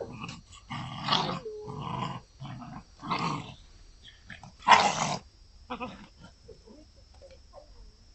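9½-week-old puppies play-fighting, growling in a run of short rough bursts, loudest just before the five-second mark, with a brief high yip early on. After that only softer grumbles and scuffles follow.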